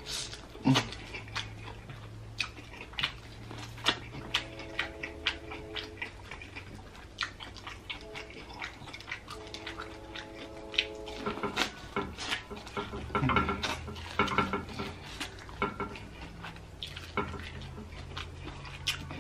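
Close-miked eating sounds: biting and chewing kernels off a buttered corn cob, with many wet mouth-smacking clicks. Two steady hums of enjoyment come about four and ten seconds in.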